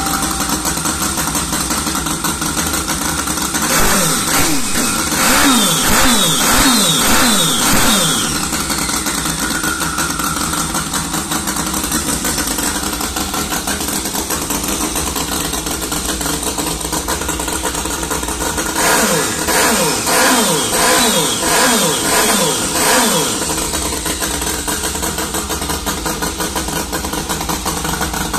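Scratch-built miniature inline-four turbocharged engine (32 mm bore, 30 mm stroke) running steadily on a test bench. It is blipped on the throttle about five or six times in quick succession about four seconds in, and again in a similar run of blips about nineteen seconds in.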